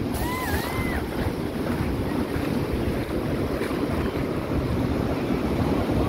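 Surf washing onto a sandy beach, a steady rush of waves with wind buffeting the microphone.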